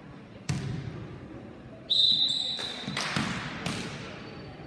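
A referee's whistle blown once for about a second, a steady shrill tone and the loudest sound here. Sharp ball impacts ring out on a gym floor before and after it.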